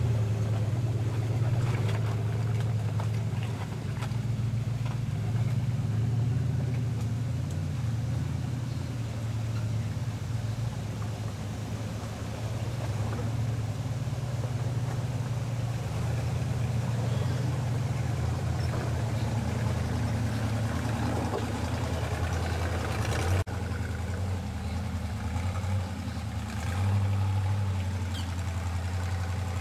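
Rock-crawling buggy's engine running at low revs, its pitch and level rising and falling as the buggy works slowly up a rock ledge.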